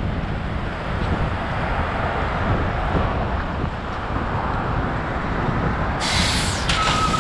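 Steady road, wind and traffic noise from a bicycle ride through city streets. Near the end comes a short, sharp hiss of air, then a steady high-pitched squeal.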